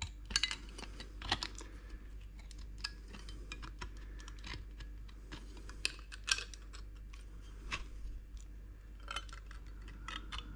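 Thin sheet-metal bell housing dust shield being handled and offered up for fit, making light irregular clicks, taps and scrapes.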